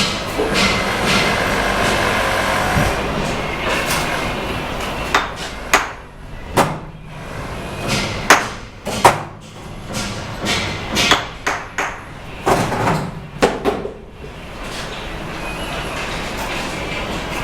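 Bricklayer's steel trowel striking and tapping cement bricks and mortar: a run of sharp, irregular knocks through the middle, each with a short ring, over a steady background noise.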